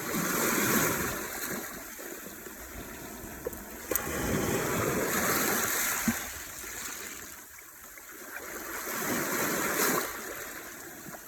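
Black Sea waves washing onto the shore, surging three times: at the start, about four seconds in, and near the end, with a few small clicks between.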